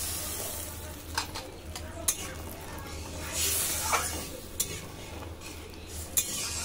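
Metal spatula stirring and scraping in a steel kadai of watery mustard-paste gravy, with sharp clicks each time it strikes the pan. Under it the gravy sizzles, swelling briefly about three and a half seconds in.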